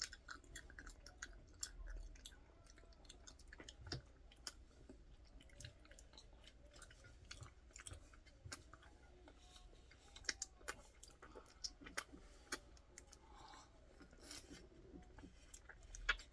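Quiet chewing and mouth sounds of someone eating ice cream, with many small wet clicks and smacks scattered irregularly.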